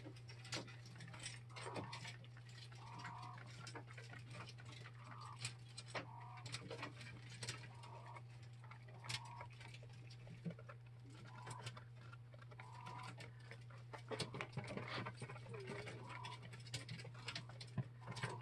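Six-week-old coturnix quail giving soft, short calls, about one a second, with scattered light clicks and taps of birds on the wire cage. A steady low hum runs underneath.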